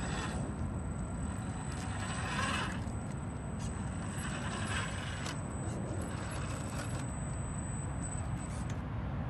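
Boom Racing BRX02 radio-controlled scale crawler's electric motor and gears whining in short spurts as it creeps over rocks, over a steady low rumble. A thin high steady whine runs underneath and stops near the end.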